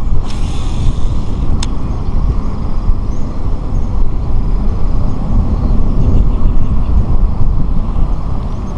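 Wind buffeting the microphone, a loud rumbling fluctuating noise, with a brief hiss and a single click in the first two seconds.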